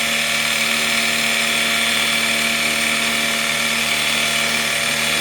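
Electric pressure washer running steadily while it sprays water into the AC's blower: a constant motor hum under a hiss of spray.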